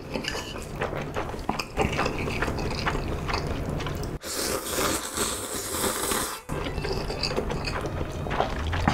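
Close-miked slurping and chewing of spicy stir-fried instant ramen noodles, with many small wet clicks and a long, loud slurp about four seconds in.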